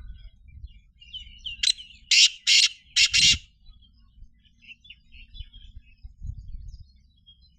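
Black francolin (kala teetar) calling: one loud burst of about five harsh, grating notes over a second and a half, about two seconds in, with faint chirps of small birds around it.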